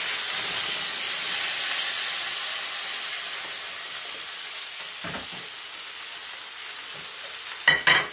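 Tomato slices sizzling in a little hot oil in a frying pan, a steady hiss that eases slightly. Near the end come a few sharp clacks as the pan is set back down on the gas burner's grate.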